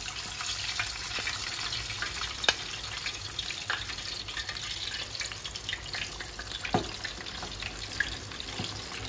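Flour-dredged chicken pieces deep-frying in hot oil: a steady sizzle and crackle that starts as the first piece goes in. A few sharp clicks stand out, the loudest about two and a half seconds in.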